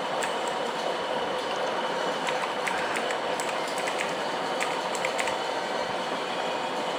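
Irregular keystrokes on a mechanical keyboard with Kailh Blue clicky switches, short sharp clicks a few times a second over a steady background hum and hiss.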